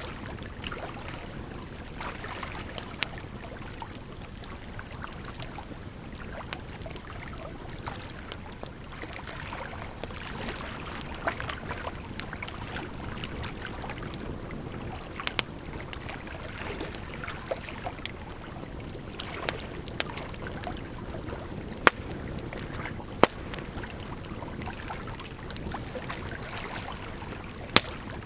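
Firewood crackling, with sharp pops every few seconds, over a steady rush of running water.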